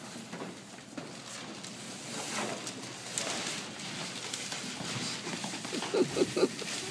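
Scuffling footsteps and the knocking and rustling of cardboard stage props being shifted and carried across a hard floor. A few short voice sounds come near the end.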